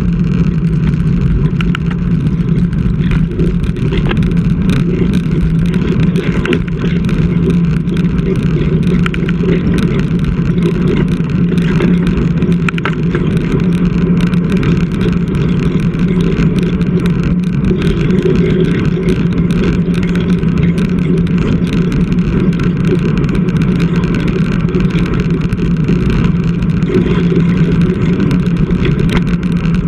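Steady wind rush and tyre-on-road noise picked up by a GoPro mounted on a road bike riding along, with scattered small clicks.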